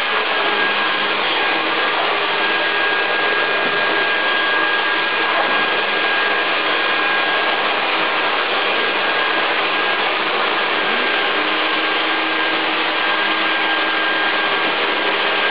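An electric leaf blower and a shop vac running together steadily, with a high motor whine. A lower hum joins about eleven seconds in. The machines are blowing and sucking the dust out of a laptop's vents.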